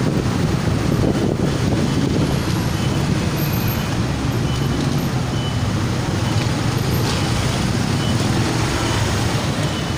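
Motorcycle engine running with steady road and traffic noise, heard from on board the moving bike.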